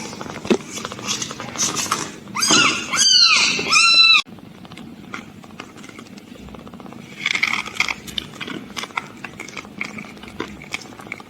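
Newborn kittens mewing: several loud, high-pitched cries that rise and fall in pitch, clustered about two to four seconds in. The sound cuts off suddenly, then fainter mews and small scratchy clicks of movement follow.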